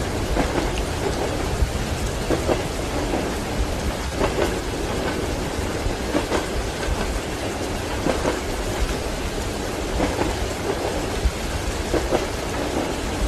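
Steady rain with low rumbling thunder, mixed with the wheels of a passenger train clacking over rail joints.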